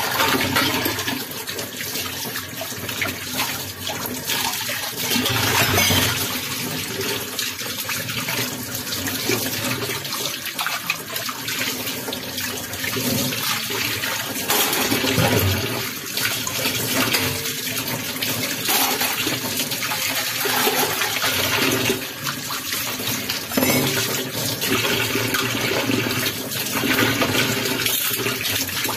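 Tap water running into a stainless steel sink and splashing over the dishes as they are rinsed and scrubbed under the stream.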